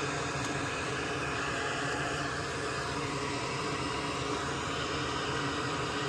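Steady, even whooshing of a small fan or blower running without change, with a faint hum under it.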